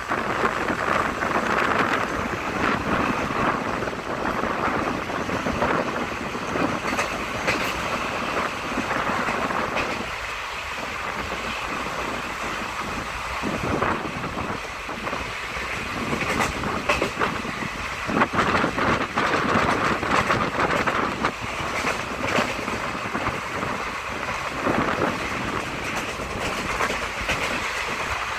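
Express passenger train running along the line: a steady rumble and rush of air, with the wheels clicking and clattering over rail joints again and again.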